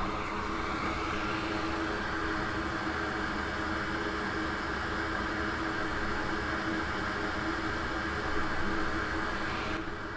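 A small electric blower runs steadily, a constant whooshing hiss with a steady hum. The kind of sound a hot-air rework station or fume-extractor fan makes during desoldering. A little before the end the higher hiss drops away.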